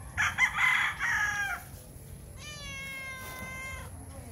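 Stray tabby cat meowing for food: a loud, long meow near the start, then a quieter, steadier drawn-out call about halfway through.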